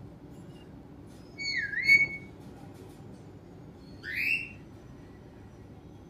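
Alexandrine parakeet whistling: one whistle that dips in pitch and rises again about a second and a half in, then a short rising whistle about four seconds in.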